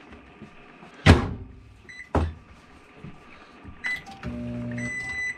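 Two thumps about a second apart, the first the loudest sound, then short keypad beeps from a newly installed LG over-the-range microwave (model LMV1831ST). The microwave then runs with a low hum for about a second near the end, its first test cook.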